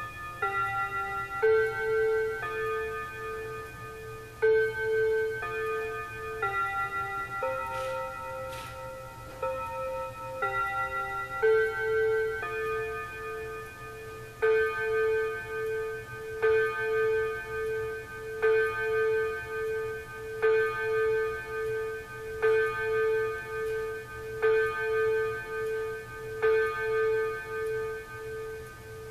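Seth Thomas wall clock chiming its hour tune on bell-like rods, then striking seven times about two seconds apart. It is sounding the seven o'clock hour at about seven minutes past seven instead of on the hour, a fault that comes seemingly at random.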